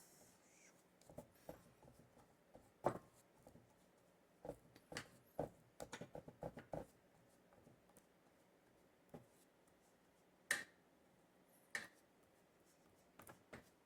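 Faint scattered clicks and light knocks of hands handling boards and glue during a wood glue-up, with a sharper click about three seconds in and a quick run of taps in the middle.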